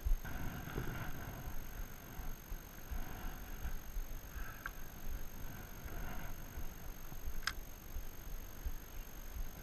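Water slapping against a small boat's hull, with uneven low thuds, and a single sharp click about seven and a half seconds in.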